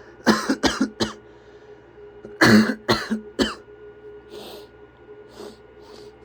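A man coughing and clearing his throat in two clusters of short coughs, the second, about two and a half seconds in, the loudest, followed by a few quieter sniffles.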